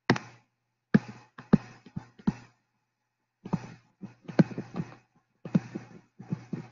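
Digital pen tapping and scratching on a touchscreen while handwriting, in short bursts of strokes that each start with a sharp tap, separated by brief pauses.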